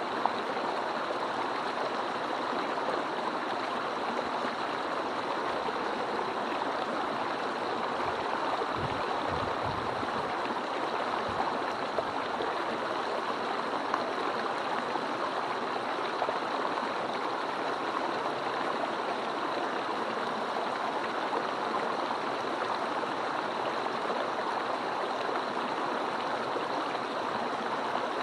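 Mountain stream rushing and splashing over rocks: a steady, unbroken wash of water noise.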